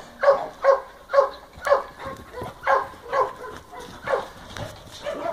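Dog barking over and over during rough play, short sharp barks about two a second; it is play-barking, not a fight.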